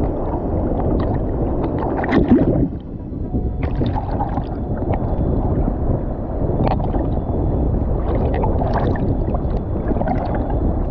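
Sea waves sloshing and washing around a camera held in the water, a dense churning wash with small splashes. One louder surge comes about two seconds in and falls away.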